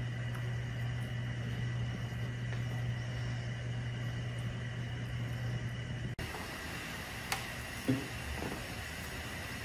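Steady low electrical hum with a faint high whine, cutting off abruptly about six seconds in and leaving quieter room noise with two faint taps near the end.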